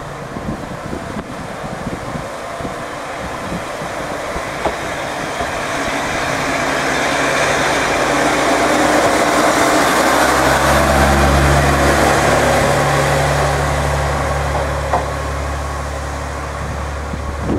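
Diesel engine of a KiHa 40-series railcar running, its low hum growing louder to a peak about ten seconds in as the railcar moves close by, then easing off as it pulls away.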